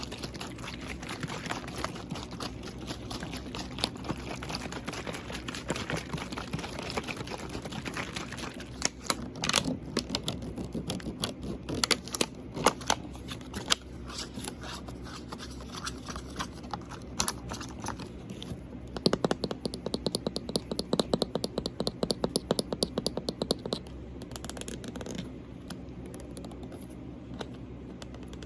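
Fingers tapping and scratching on a water bottle in quick, uneven runs of small clicks, with faster bursts of tapping about two-thirds of the way through.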